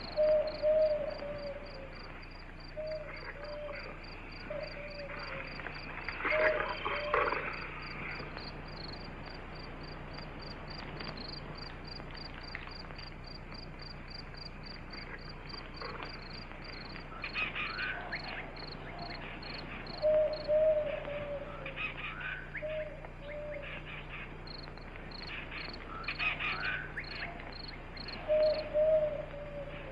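Night-time ambience of crickets chirping steadily in rapid, even pulses, with short low hooting calls in twos and threes every few seconds. Some louder, higher animal cries come about six seconds in and twice more later.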